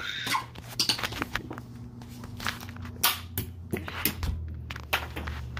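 Handling noise from a phone camera being moved about: scattered light clicks and knocks, about a dozen, over a faint steady hum.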